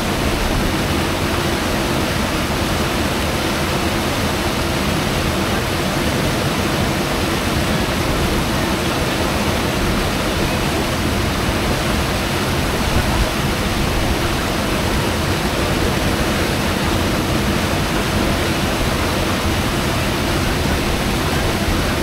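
Verzasca River rushing down a short whitewater cascade over rocks: a steady, even sound of churning water.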